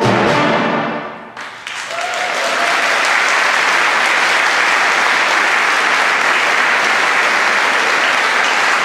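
The concert band's final chord cut off and ringing away into the hall, then audience applause that builds within about two seconds and carries on steadily.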